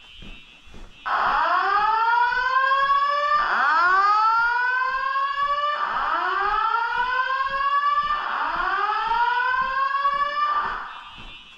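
Fire alarm sounding a whoop tone: four rising sweeps in pitch, each about two and a half seconds long. It starts about a second in and stops shortly before the end.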